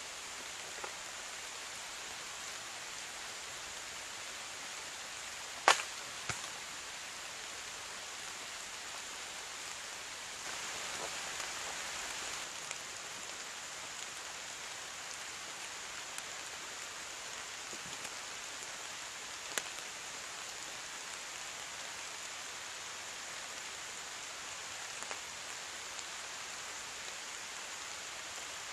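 Steady rain falling in a woodland, a constant even hiss, with a few sharp knocks or snaps breaking through. The loudest comes about six seconds in and another near twenty seconds.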